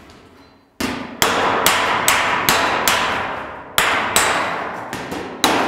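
Panel-beating hammer striking a bare-metal car bonnet against a dolly held underneath: about a dozen sharp, ringing blows at roughly two to three a second, with a short pause past the middle. The blows knock down the high spots along a weld, relieving the stress that the weld's shrinkage has left in the panel.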